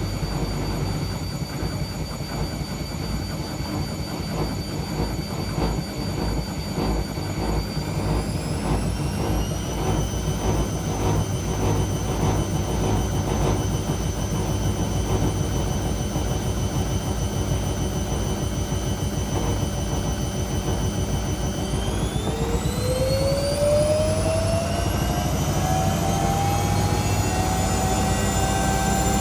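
Washing machine running with a loud whine like a jet engine over a steady low rumble; the whine rises in pitch about eight seconds in and again about twenty-two seconds in, as the drum spins faster.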